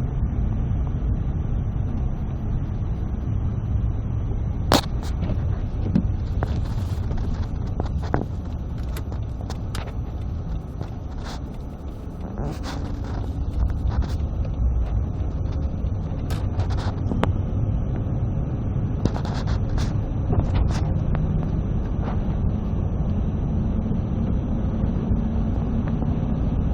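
Car driving on a snowy road, heard inside the cabin: a steady low rumble of engine and tyres, with scattered sharp clicks and knocks.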